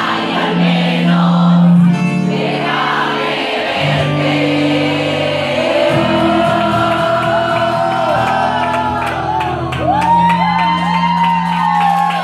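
Live pop ballad with acoustic guitar and steady low chords, a male singer carrying the melody and the audience shouting and singing along. The lead vocal line grows clearer and stronger in the second half.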